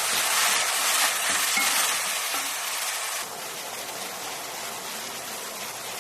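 Sliced chicken thighs with onion and garlic sizzling in hot oil in a pan while being stirred, browning. The sizzle drops suddenly quieter about three seconds in.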